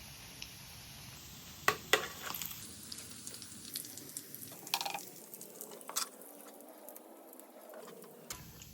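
Cooking sounds: scattered clinks and knocks of utensils against cookware over a low background hiss, the two sharpest knocks about two seconds in.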